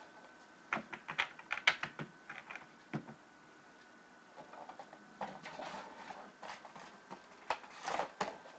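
Light clicks and taps in quick clusters, about a second in and again near the end, with softer rustling between them: small objects being handled by hand. A faint steady high tone hums underneath.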